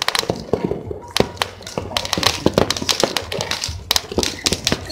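Many firecrackers and fireworks going off at once, a dense, irregular run of pops and bangs with no pause.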